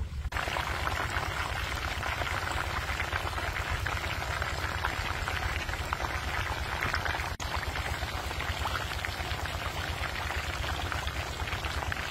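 Battered chicken pieces deep-frying in a large wok of hot oil: a steady, dense sizzle and crackle, with a very short break about seven seconds in.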